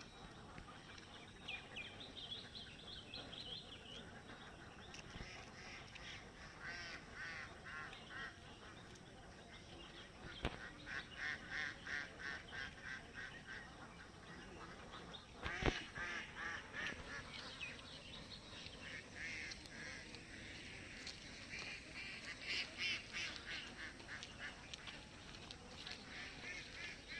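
Ducks quacking in bouts of rapid, repeated calls, with birds chirping among them. Two sharp knocks cut through, about ten and sixteen seconds in; the second is the loudest sound.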